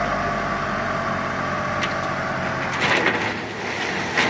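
Light dump truck's engine running steadily with a held whine as the hydraulic tipper raises the bed. About three seconds in the whine stops, and rocks clatter as they start sliding out of the tipped bed, with another clatter near the end.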